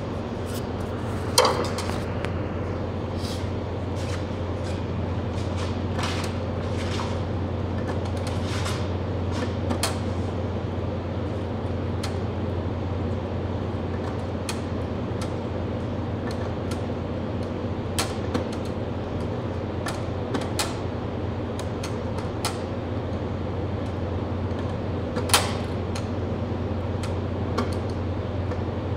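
Scattered clicks and light metallic taps of hand tools on the tubing of a window air conditioner's chassis, over a steady low hum. The sharpest click comes about a second and a half in, and another comes near the end.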